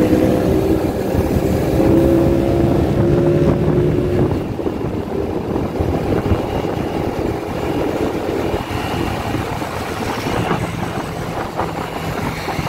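Motorcycle riding in traffic: a steady engine hum for the first four seconds or so, then mostly wind rushing over the microphone and road noise.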